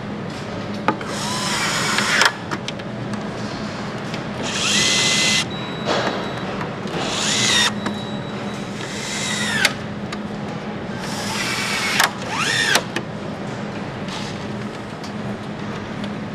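Power screwdriver driving screws into motorcycle bodywork in about four short runs, each whirring up and winding down in pitch, with sharp clicks between the runs. A steady low factory hum runs underneath.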